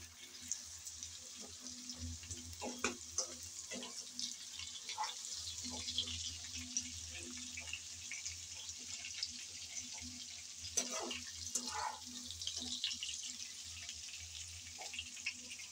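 Vegetables sizzling softly in hot oil in a pan as they are lifted out with a wire-mesh skimmer, with light scrapes and clicks of the skimmer against the pan.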